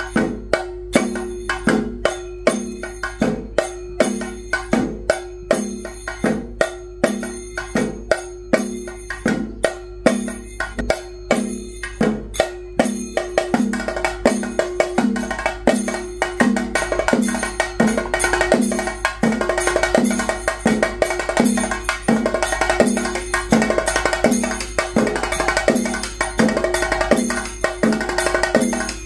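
Kerala ritual percussion: drums struck in a steady rhythm of about two beats a second over a held tone. About thirteen seconds in, the playing grows denser and brighter.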